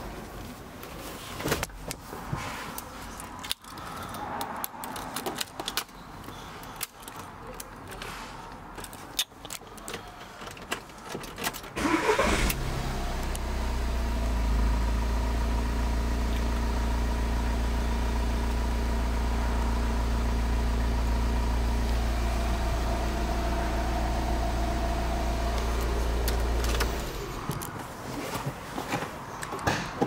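Clicks and key rattles inside a Volkswagen Caravelle cab. About 12 seconds in, the engine starts and idles steadily for about fifteen seconds, then is switched off, and the clicking and handling noises return.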